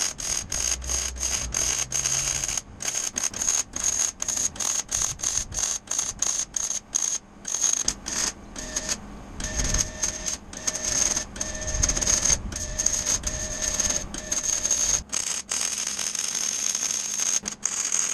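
Crackling of a Miller Millermatic MIG welder's arc as steel is welded, the crackle stopping and restarting many times in short runs. A repeating beep sounds for several seconds midway.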